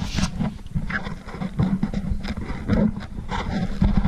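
Handling noise on a hand-held camera's microphone: irregular rubbing, rumbling and short knocks as the camera is carried and gripped.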